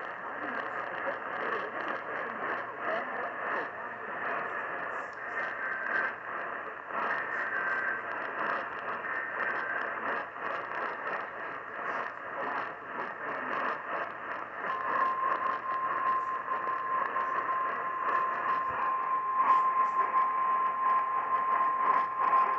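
Weak AM radio reception: continuous static and noise with a faint, garbled station voice buried in it, the interference typical of DXing a distant AM station that another station overpowers. About two-thirds of the way in, a steady single tone near 1 kHz rises out of the noise and holds.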